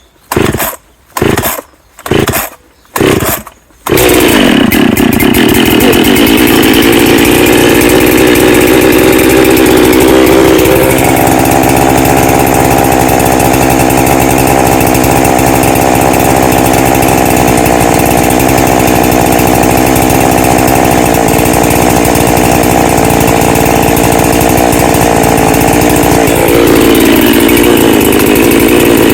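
Cold start of a ported Husqvarna 365 Special two-stroke chainsaw: a few quick pulls of the starter cord, then the engine catches about four seconds in and keeps running steadily as it warms up. Its note changes about eleven seconds in and again near the end.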